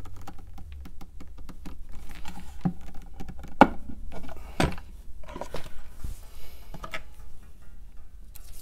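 A pen assembly press and pen parts being handled: scattered small clicks and taps, with two sharper knocks about three and a half and four and a half seconds in. The press is seating the pen's twist mechanism in small steps.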